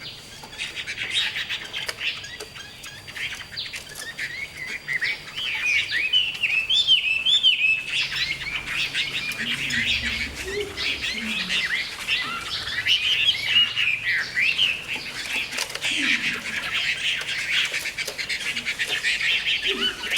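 Caged songbird calling in a continuous, rapid stream of short chirps and chattering notes: the calling of a fighting bird set against a rival to show its aggression.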